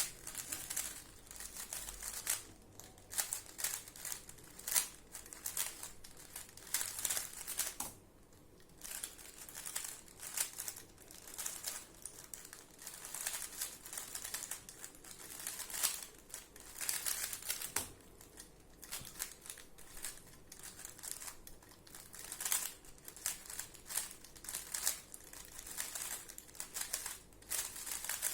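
Plastic speed cube being turned rapidly by hand: a dense, continuous run of clicking and rattling layer turns, with a short pause about eight seconds in.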